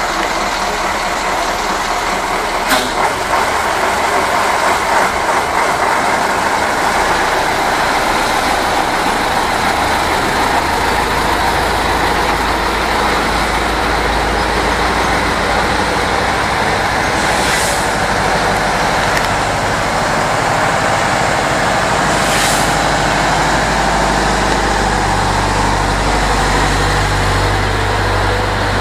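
Heavy diesel engines of a Tatra 148 crane truck and a Detvan wheeled crane running as the vehicles move slowly past at close range. The low engine note swells about a third of the way in and again near the end, with two short hisses past the middle.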